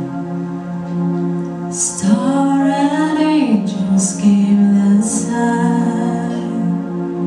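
A woman sings a slow Christmas worship song into a microphone over long held keyboard chords from a live band.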